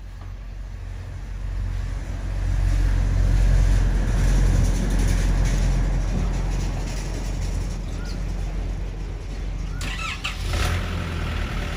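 An off-screen motor vehicle engine rumbling low and steady, growing louder over the first few seconds and then holding, with a brief sharp noise near the end.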